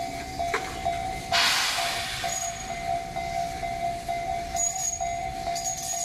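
Japanese level-crossing warning bell ringing in even strokes about twice a second as electric commuter trains move past. A loud burst of hiss comes about a second in, and short, thin, high squeals come near the end.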